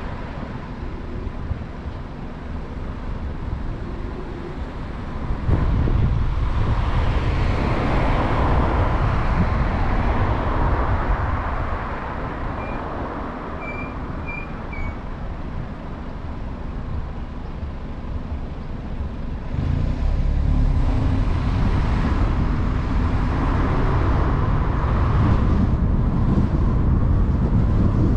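Road traffic at a city junction: a steady low rumble of passing vehicles that swells louder twice, from about six seconds in and again from about twenty seconds in. A few faint, short high chirps come around the middle.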